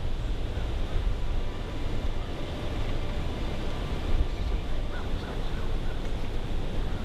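Wind rumbling on the camera microphone: a steady, deep buffeting with no distinct events.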